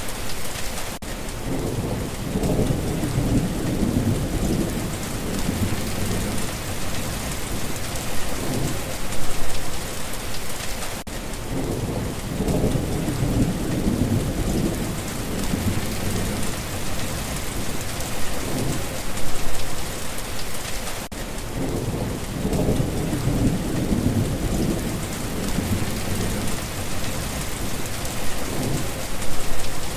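Steady rain falling, with low rumbles of thunder that swell and fade about every ten seconds.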